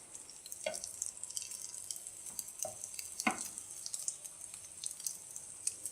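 Egg-dipped bread slices frying in oil in a pan, a faint steady sizzle with scattered crackles and a few louder pops.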